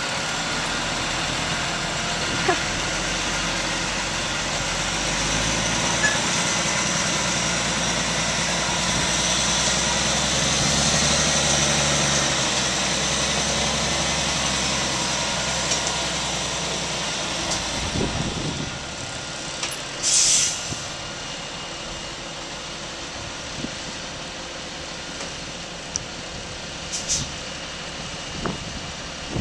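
John Deere 7930 tractor's six-cylinder diesel and the grain truck's engine running steadily under load as the tractor pulls the stuck truck out of the mud on a chain. The engine noise swells and then drops away about two-thirds of the way through, followed by a short hiss of air from the truck's air brakes.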